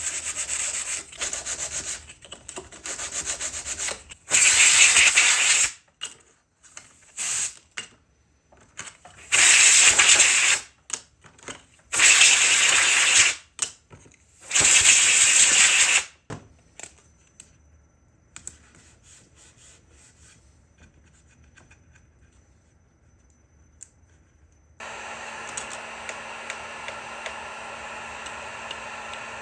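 Hand sanding on a knife, in scratchy strokes: quick short rubs at first, then longer strokes a second or two long with pauses between them. After a quiet stretch, a steady machine hiss with a low hum starts near the end.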